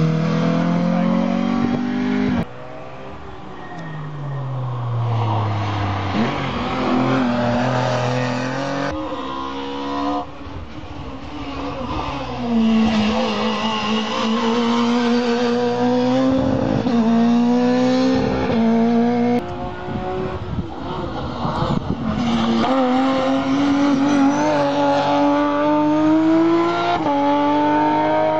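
Hill-climb competition cars, among them a Renault Clio and a BMW coupe, accelerating hard up the climb one after another. The engine pitch climbs and drops back with each upshift, over and over, and the sound changes abruptly a few times between cars.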